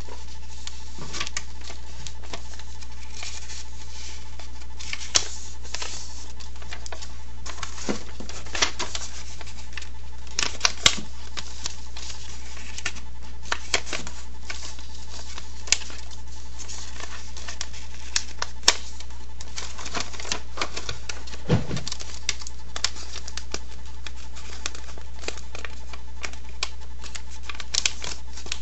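A sheet of paper being folded and creased by hand: irregular crackles, rustles and taps as the paper is handled and pressed against the table, over a steady low hum.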